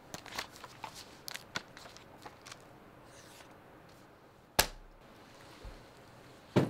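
Paper pages rustling and handled with small clicks, then a sharp slap about four and a half seconds in as the script is put down on a desk, and another sharp hit near the end.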